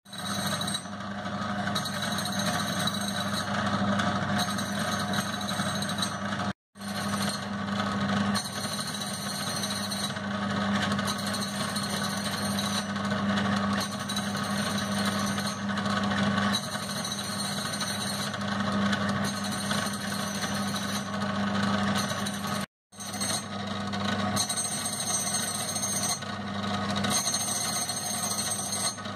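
Profile copy grinder running with a steady motor hum while its grinding wheel grinds a miniature camshaft for a Wallaby 34cc model engine. The sound breaks off abruptly twice.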